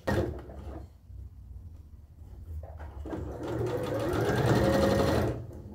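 Electric sewing machine stitching a seam: a click at the start, a slower stretch, then running fast from about three seconds in and stopping just before the end.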